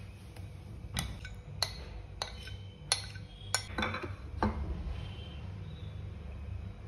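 Metal spoon clinking and scraping against a glass dish while scooping soft yogurt topping out: about seven sharp separate clinks in the first four and a half seconds, then only the quieter spreading.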